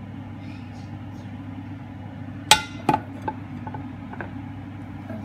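A ceramic plate set down with a sharp clatter about halfway through, followed by a couple of lighter clinks, over a steady low hum.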